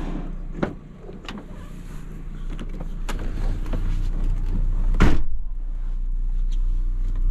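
SUV driver's door opened with a couple of light latch clicks, then shut with one loud thump about five seconds in, over a steady low engine hum.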